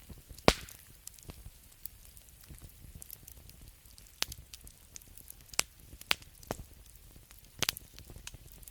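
Wood fire crackling: irregular sharp pops and snaps over a faint low background. The loudest pop comes about half a second in, and a scatter of pops follows in the second half.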